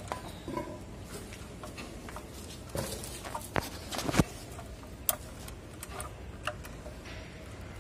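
Screwdriver and wire ends clicking and tapping against the terminals and plastic housing of a motor starter as it is wired: a few scattered sharp clicks, the loudest about four seconds in.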